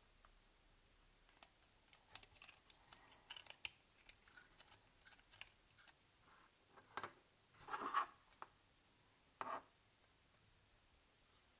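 Quiet hand work on small parts at a bench: a scatter of faint ticks and scratches, then three louder scrapes in the second half.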